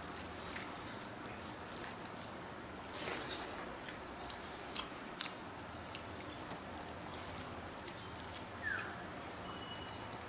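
Fingers mixing rice and curry on a steel plate: soft squishing with scattered small clicks over a steady background hiss. A short falling chirp sounds near the end.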